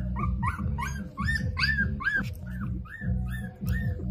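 Hungry young puppies whimpering in a rapid run of short, arched high cries, about four a second, over background music.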